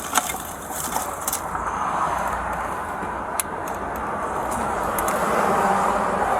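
Roadside traffic noise: a vehicle's rushing tyre and engine sound swells slowly as it passes, loudest near the end, with a few sharp clicks.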